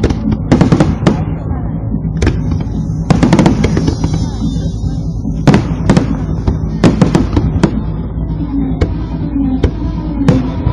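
Aerial fireworks shells bursting in an irregular series of sharp bangs, several coming in quick clusters, over a steady low background of music and crowd.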